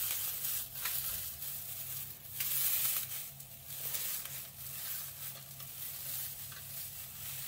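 Dried herb sprigs crackling and rustling as they are crushed and rubbed between the hands, the brittle leaves crumbling onto a cloth towel. Loudest a little past two seconds in.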